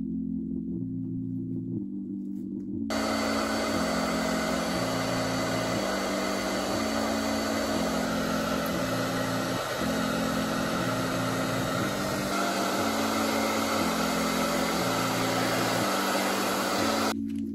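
Handheld FROMM hair dryer switched on about three seconds in, blowing steadily at the hairline of a wig to dry the lace-bond spray, and switched off just before the end. Soft background music with slow low chords plays under it.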